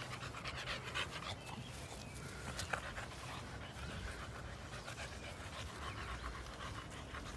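Boxer dog panting quietly, close by.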